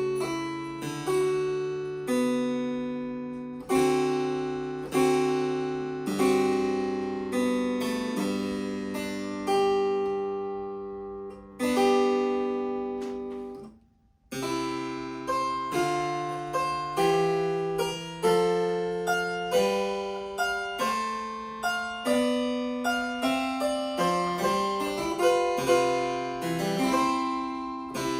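Harpsichord music: plucked notes in chords and runs, each note fading quickly. The playing stops briefly about halfway through, then starts again.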